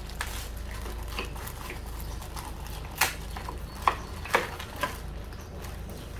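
Small hard items handled in an unboxing: a few sharp clicks and knocks, the loudest about three seconds in and then three more over the next two seconds, over a low steady hum.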